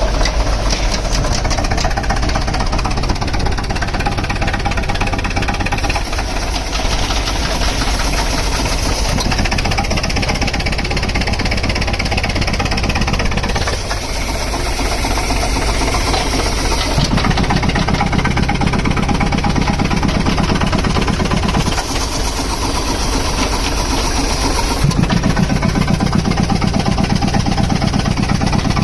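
A compressor's engine running steadily with a rapid knocking beat. The sound changes abruptly several times, as between separate takes.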